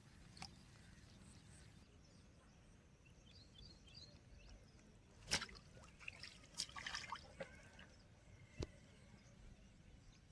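Near silence with a handful of brief clicks and small drip-like sounds, the loudest about five seconds in, a quick cluster soon after, and one more near the end.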